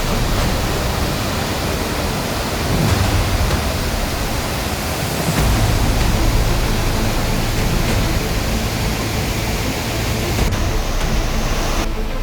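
Steady rushing noise of a large waterfall's falling water. A deeper low rumble joins about five seconds in.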